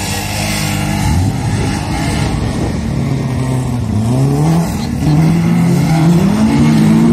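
Several banger racing cars' engines revving and easing off as they race round the track and pass close by. The engine notes overlap, rise and fall again and again, and grow louder toward the end.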